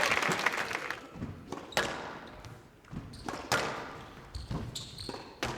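Squash ball being struck and smacking off the court walls in a rally, sharp echoing hits about every second and a half with lighter knocks between. Applause dies away in the first second.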